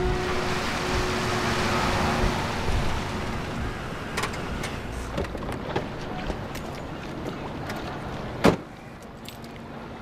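A car drives up on a wet street, the hiss of its tyres fading over the first few seconds. Small clicks and handling noises follow, then a car door shuts with a single loud thud about eight and a half seconds in.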